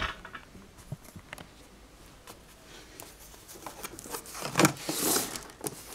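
Cardboard packaging being handled and opened: a few light taps and clicks, then near the end a knock followed by a rustling scrape.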